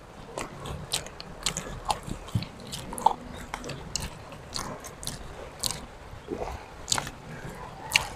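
Close-up eating sounds of people eating by hand: chewing and lip smacks with irregular sharp clicks and crunches, some from a cooked shrimp's shell being peeled.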